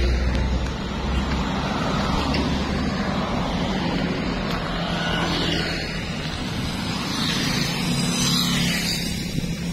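Road traffic passing close by: a car goes by, then a motorcycle engine comes in about halfway through and grows louder as the bike approaches and passes near the end.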